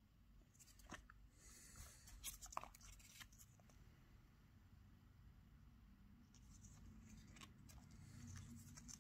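Faint rustling and crinkling of paper sticky notes and stickers being handled, in two short spells, with a few small clicks.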